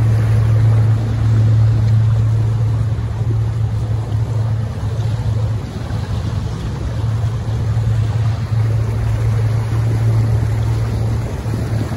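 Boat's outboard motor running steadily, a constant low hum, with water and wind noise around it.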